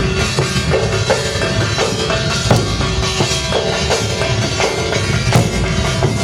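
Music led by drums beating a steady, dense rhythm, with a short pitched phrase repeating over it.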